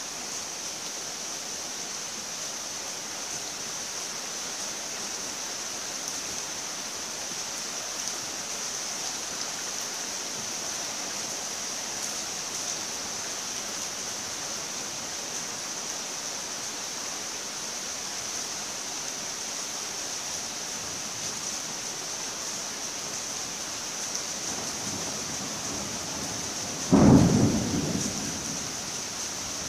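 Steady rain hiss. Near the end, a low rumble of thunder builds and then breaks into one loud thunderclap that dies away over a second or so.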